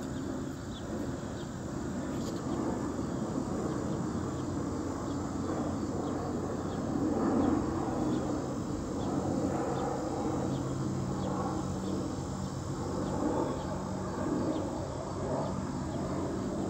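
Steady outdoor chorus of insects chirping, over a low background rumble, with a faint steady low hum in the second half.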